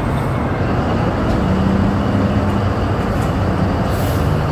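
Large diesel mining haul truck engine running with a steady, loud low rumble.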